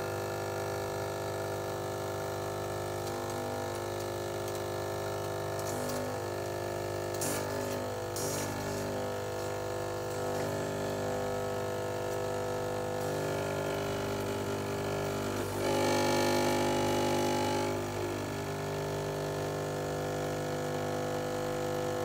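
Breville Barista Express Impress's vibratory pump humming steadily as it pushes water through the portafilter under brewing pressure during a shot. It gets louder and rougher for about two seconds near the end.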